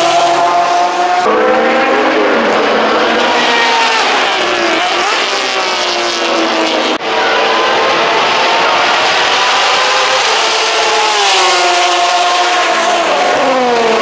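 GT-class race car engines at high revs as cars pass at speed, one after another. The engine note changes abruptly about a second in and again halfway through, and falls away as a car goes past near the end.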